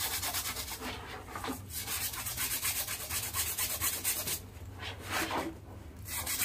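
Rapid back-and-forth scrubbing on a shampooed bag, with short pauses about a second in and twice near the end.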